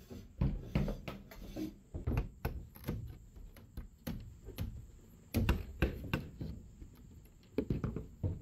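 Hammer knocking into a bamboo pole, cutting a rectangular slot: a run of irregular knocks, with several harder blows about five and a half seconds in.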